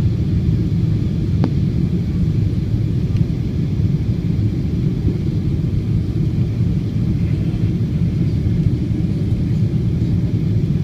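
Steady low rumble of an airliner's cabin noise during a landing, from the engines and rushing air, with one faint click about a second and a half in.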